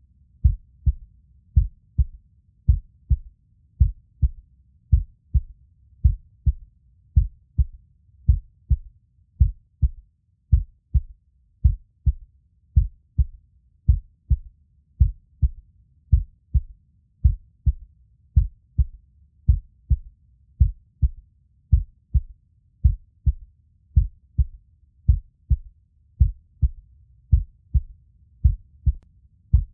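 Heartbeat sound: a slow, steady lub-dub, deep low thumps in pairs about once a second, repeating evenly throughout.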